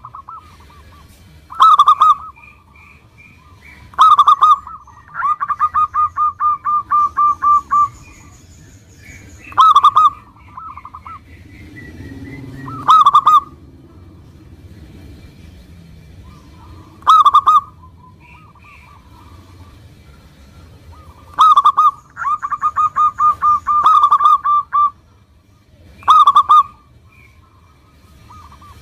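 Zebra dove (local perkutut) singing: loud short cooing calls come about every four seconds. Twice, a call runs on into a rapid string of staccato notes, about five a second.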